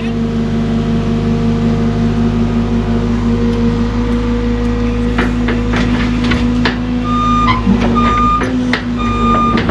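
Cat excavator's diesel engine running steadily under work, with a few clanks of the machine working. About seven seconds in, a backup alarm starts beeping at a steady pace, a little more than once a second.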